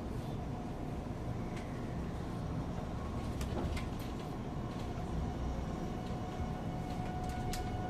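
JR Central 373 series electric train pulling away, heard from inside the car: a low running rumble under the steady whine of its Toshiba GTO traction inverter, which grows louder near the end. A few sharp clicks come in the middle and near the end.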